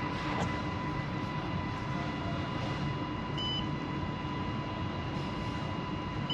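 Steady hum of machinery in a ship's engine room, with a constant tone, and two short electronic beeps about three seconds apart.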